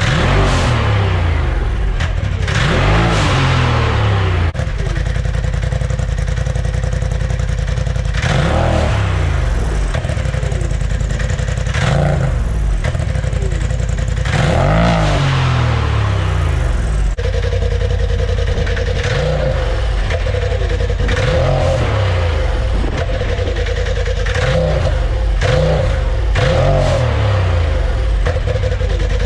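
Turbocharged Polaris side-by-side engine revving up and easing off again and again, its pitch rising and falling every few seconds. A steady high whine joins in about halfway through.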